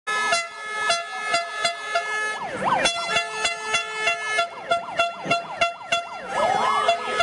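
Protest noise: a siren sweeping up and down several times a second over steady horn-like tones, with a quick regular beat. A wider, slower sweep of the siren comes about two and a half seconds in and again near the end.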